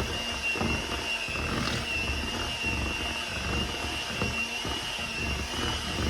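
Electric mixer running steadily with a high motor whine, its beaters creaming cream cheese and sweetened condensed milk in a bowl, with irregular knocks of the beaters against the bowl.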